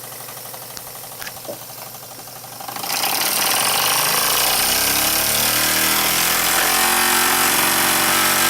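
Jensen No. 5 riveted-boiler toy steam engine running with a steady mechanical chatter; about three seconds in the sound jumps much louder and hissier, with a low pitch that climbs and then holds steady.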